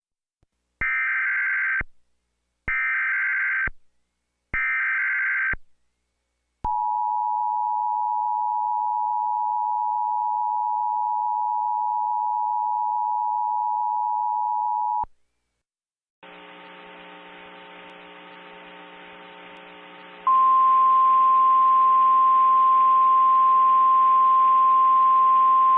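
Emergency Alert System alert tones: three roughly one-second bursts of screechy digital header data, then the two-tone EAS attention signal held steady for about eight seconds. After a short gap a buzzing drone with several steady pitches begins, and a loud steady single tone joins it a few seconds later.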